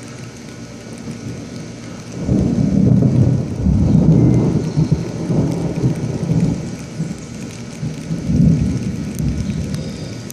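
Rolling thunder: a low rumble swells up about two seconds in, surges several times, and dies away toward the end.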